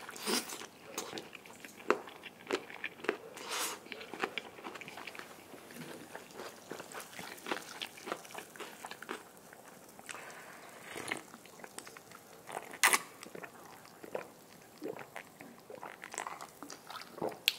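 Close-up mouth sounds of eating crispy fried chicken: biting, crunching and chewing in many short crackles. Later come sips and swallows of cola from a glass mug.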